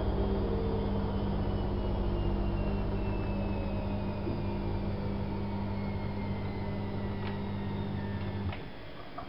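Privileg Single 42614 washing machine slowing down from a spin: a machine whine that falls slowly in pitch over a steady hum. The hum cuts off about eight and a half seconds in, followed by a couple of faint clicks.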